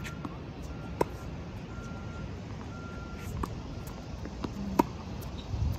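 Tennis ball being played in a rally on a hard court: several sharp pops of ball on racket strings and court, the loudest about a second before the end, over a steady low rumble.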